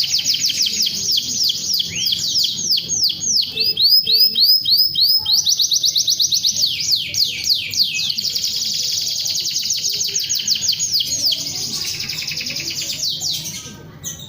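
Domestic canary singing a long, loud song of rapid trills, fast runs of falling notes that switch to a new phrase every few seconds; the song tails off near the end.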